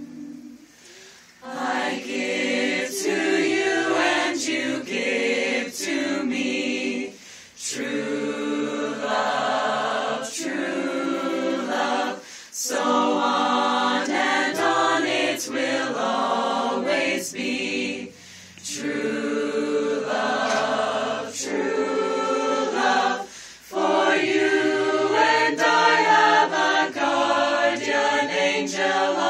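Small a cappella group singing in several-part harmony, beginning about a second and a half in, with brief breaks for breath between phrases.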